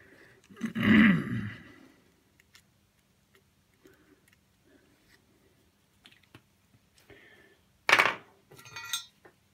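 Faint taps and scrapes of a rosin flux pen's tip dabbing against a circuit board's chip pins, with a short falling grunt-like vocal sound about a second in and a sharp clack near the end as the pen is put down.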